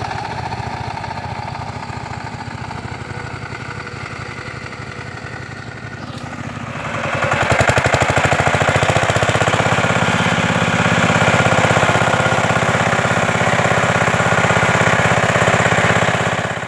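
Engine of a ploughing machine running steadily, then growing louder about seven seconds in and staying loud.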